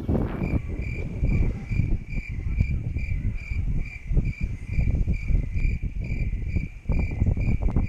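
Wind buffeting the microphone of a camera on a moving bicycle, with a short high-pitched squeak or chirp repeating evenly about two and a half times a second, starting about half a second in.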